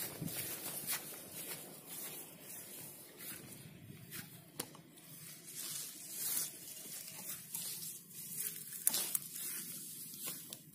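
Footsteps through dry grass and ripe rice stalks, the stalks rustling and brushing as someone pushes through them, in irregular crackles and swishes.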